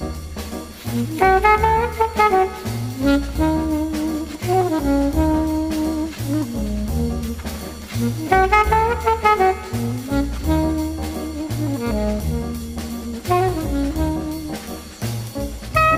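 Background jazz music: a brass melody line over a steady pulsing bass.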